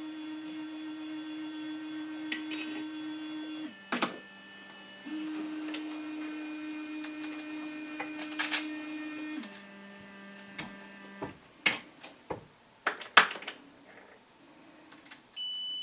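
Electronic powder dispensers running, their motors humming steadily and dropping to a lower pitch and back as they switch between fast throwing and slow trickling of the charge. Later come several sharp clicks and knocks from the bullet-seating press and brass, and near the end a dispenser beeps, signalling a finished charge.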